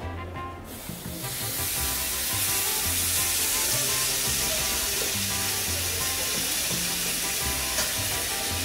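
A flour-tortilla burrito sizzling in a hot frying pan, the sizzle starting about a second in, with background music underneath.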